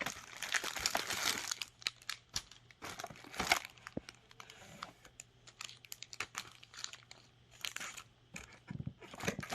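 Plastic packaging crinkling and rustling as it is handled, with irregular crackles and clicks.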